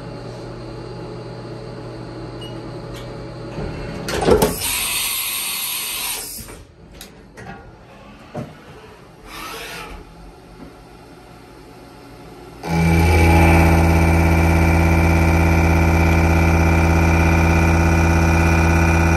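Haas CNC vertical mill: a tool change about four seconds in, with a sharp clunk and a few seconds of hiss, then from about two-thirds of the way through the large milling cutter roughing 12L14 steel at high feed, a loud, steady, multi-toned machining sound that stops near the end.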